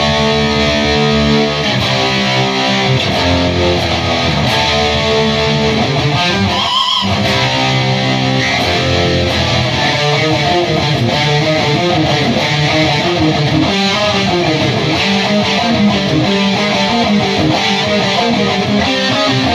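Electric guitar played through a Bugera 333XL valve amp on its stock tubes into a Mesa cabinet, strumming riffs and held chords that change in rhythm, with a short break about seven seconds in.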